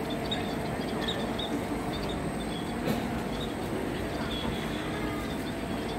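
Small caged birds give short high chirps again and again over a steady background murmur of voices.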